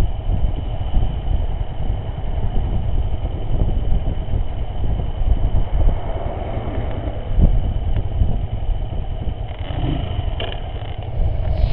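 Motorcycle engine idling at a standstill, steady throughout; a few light clicks near the end.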